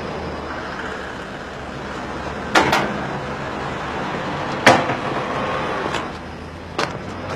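Steady street traffic noise with a handful of sharp knocks and clicks, two close together about two and a half seconds in and the loudest about four and a half seconds in.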